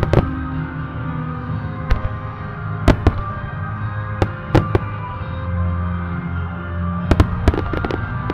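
Aerial firework shells bursting with sharp bangs over sustained, slow background music: about a dozen bangs scattered through, with several in quick succession near the end.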